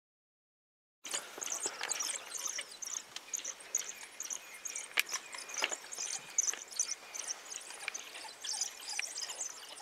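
African wild dogs splashing through a shallow, muddy waterhole in a chase, with sharp splashes and knocks over a steady high chirping. The sound starts about a second in.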